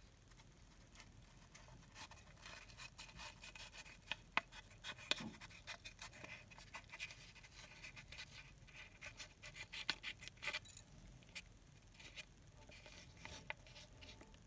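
Small scissors snipping and scraping through the leathery shell of a pipped ball python egg: faint, irregular clicks and scratching, busiest through the middle.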